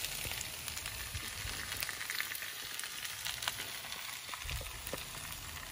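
Root vegetables sizzling in fat in a cast-iron pan under a roasting leg of lamb on a kamado grill: a steady frying hiss with a few light crackles.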